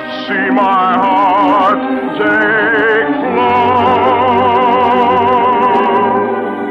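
Orchestral song music with an operatic singing voice in strong vibrato, holding one long high note from about half a second after the midpoint and fading near the end.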